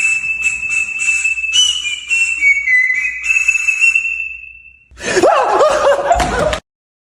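A high, steady whistle tone with a regular clicking rhythm over it, dipping slightly in pitch before fading out about four seconds in. It is followed by a short, loud warbling sound that cuts off abruptly.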